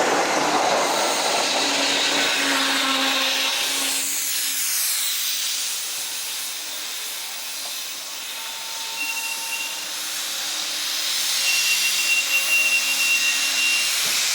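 Express train rolling the last few seconds to a stop under emergency braking, then a steady hiss of compressed air escaping from the train's air brake pipe, vented when the alarm chain was pulled. Faint steady tones sit under the hiss in the second half.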